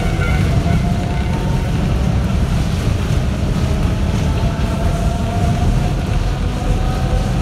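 Sanki Railway Hokusei Line 270-series narrow-gauge electric train running, heard from inside the car: a steady, loud rumble of wheels and running gear, with a faint whine that climbs gently in pitch in the second half.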